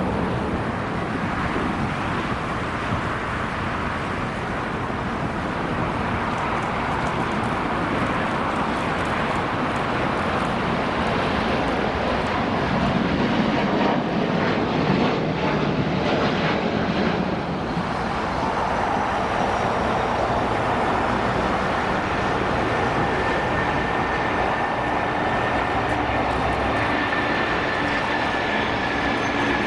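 Jet engines of wide-body airliners at takeoff power as they climb out, a continuous heavy jet noise. In the last third a thin high fan whine sits on top, slowly falling in pitch.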